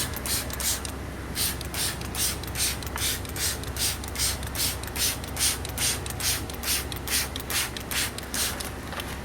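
Hand trigger spray bottle pumped rapidly and repeatedly, squirting citrus cleaner in short hissing bursts, about three a second, with the trigger mechanism clicking on each pull.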